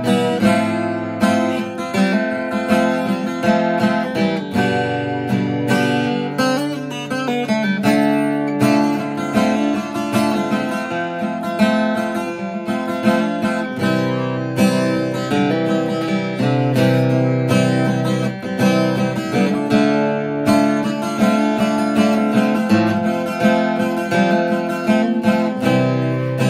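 Acoustic guitar strummed steadily, the chords changing every second or so.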